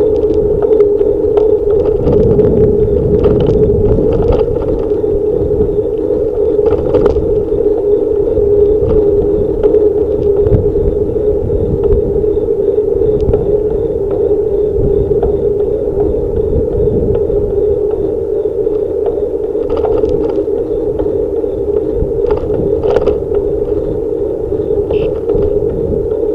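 Bicycle ridden along a city bike lane next to car traffic: a steady road rumble and hum, with occasional light rattles from the bike.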